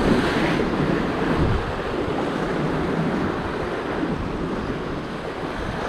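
Sea swell washing and breaking against the rocks in a steady rush of surf, with wind blowing across the microphone.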